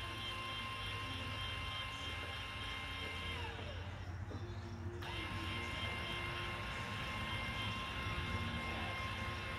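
A 12V electric linear actuator (16-inch stroke, 800-pound, Progressive Automation) moving a tractor powerlift step with a person standing on it, its motor giving a steady whine over a low hum. About three and a half seconds in the whine drops in pitch and stops, then a second and a half later it starts again, quickly coming back up to speed, and runs on.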